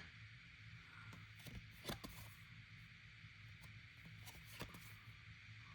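Near silence over a steady low hum, with a few faint, short clicks and taps from trading cards and their packaging being handled.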